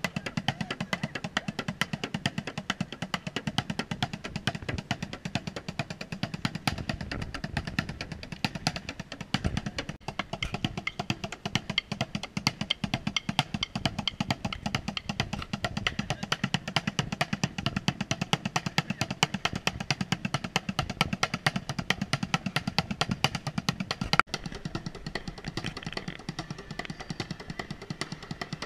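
Bucket drumming: fast, dense rhythms beaten with drumsticks on upturned plastic buckets, tubs and a metal tin. A single sharp, loud strike comes about four seconds before the end, after which the deep bucket tones drop back and the lighter, higher hits carry on.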